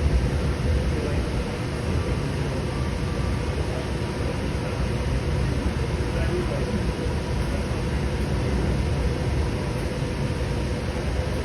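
Steady low rumble and hiss of a Link light rail train running between stations, heard from inside the car.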